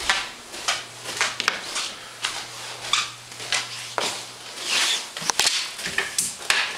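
Footsteps and clothing or handling rustle from a person walking through rooms, with a few sharp clicks. A low steady hum stops about four seconds in.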